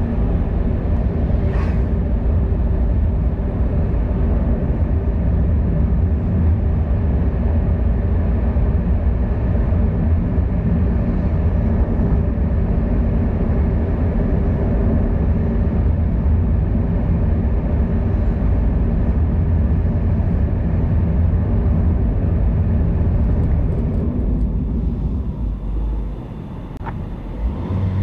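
Steady low rumble of road travel from the moving vehicle carrying the recorder, with wind and rolling noise; it eases briefly about two seconds before the end, then returns.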